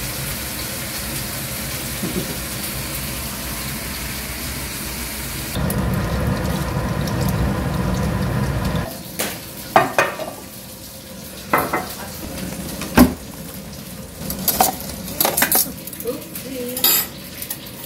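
Hot oil sizzling steadily in a frying pan as meat fries. After about six seconds it changes to a louder, lower frying hiss as a vegetable batter cooks. From about nine seconds in, the frying gives way to a series of sharp clinks as metal spoons, chopsticks and dishes are set down.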